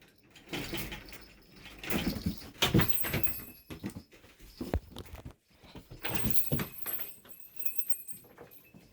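Two pet monkeys scrambling over and around a person: irregular rustling, knocks and bumps, with some short animal sounds mixed in.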